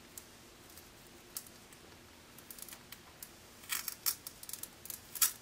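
A refrigerator electronic control board (printed circuit board) being bent by hand along its seam, giving small crackling clicks as the board begins to split. The clicks are sparse at first and come more often from about halfway, and the sharpest snaps fall near the end.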